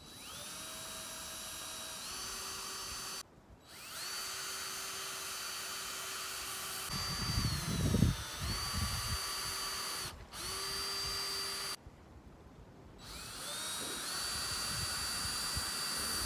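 Cordless drill driving screws into a wooden frame: the motor whirs up to speed, runs steadily and stops, four times with short pauses. About halfway through its pitch dips under load and a few loud knocks come through.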